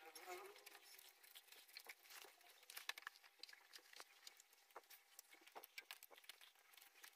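Faint, irregular soft pats and scrapes of a hand spreading wet mud plaster into a patch of an earthen floor.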